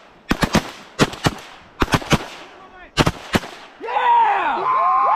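Waterfowl hunters' shotguns firing a volley of about eight shots in quick pairs over the first three and a half seconds. Then, near the end, a loud tangle of overlapping drawn-out calls rising and falling in pitch.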